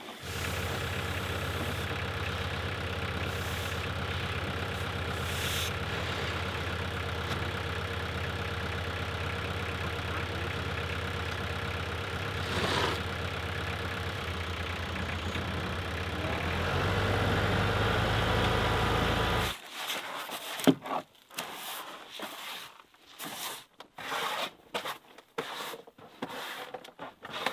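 An engine running steadily, getting louder about sixteen seconds in and then cutting off suddenly. Scattered short noises follow.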